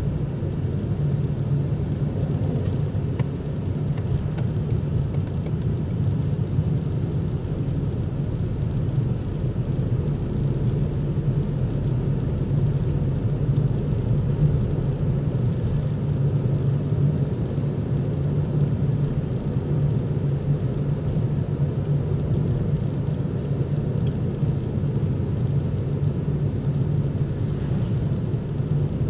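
Steady engine and road noise of a vehicle cruising along a highway, heard from inside its cabin as a constant low hum.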